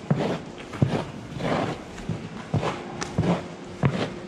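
Hand stall scraper pulled in short strokes across sawdust-bedded cow cubicles, each pull a rough scrape ending in a knock, about one every half second to second.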